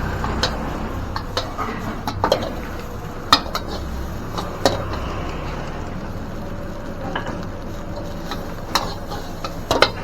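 Metal spatula stirring fried rice in a wok, with irregular sharp clanks and scrapes against the pan over a steady sizzle. The loudest clanks come about three seconds in and near the end.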